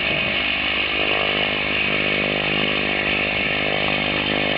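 Light aircraft engine running steadily: a constant drone with a strong high whine.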